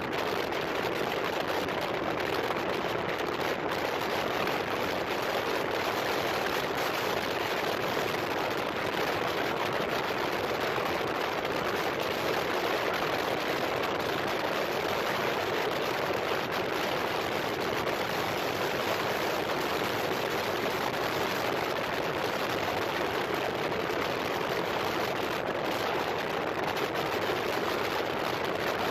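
Steady rush of wind and wet-road noise from a moving motorcycle riding in the rain, an even hiss with no distinct engine note.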